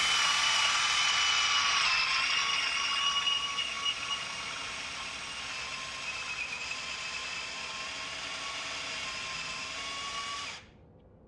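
Electric drill running a 35 mm Forstner bit, boring a blind hole for a furniture hinge cup into a wooden board through a drilling jig's guide. The steady motor whine dips slightly in pitch about two seconds in as the bit bites into the wood, then stops about ten and a half seconds in.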